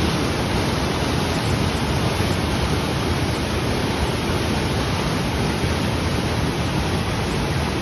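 Loud, steady rush of whitewater in a rocky mountain stream.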